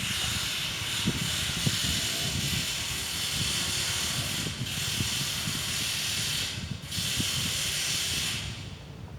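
A loud, steady hiss that breaks off briefly twice, about four and a half and seven seconds in, and stops shortly before the end, with faint low knocks beneath it.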